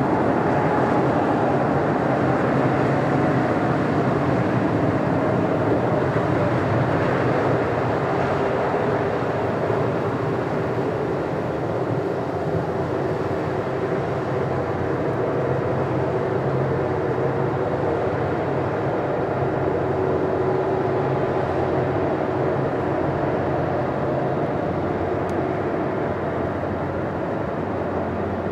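Jet engines of a Singapore Airlines Airbus A330-300 running steadily, a whine over a low rumble, with one tone falling slightly in the first few seconds.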